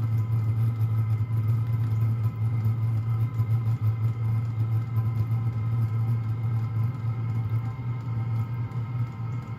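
Hcalory portable diesel heater running steadily just after ignition: a constant low hum with a steady blower whine above it. It is a little loud from vibration while the heater is still cold.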